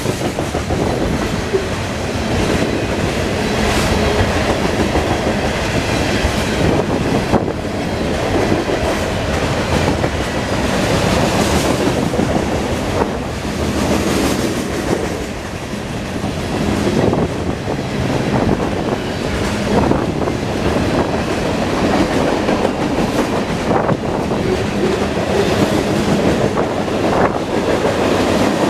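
Cars of a long mixed freight train rolling past, steel wheels on the rails making a steady rumble with scattered sharp clicks.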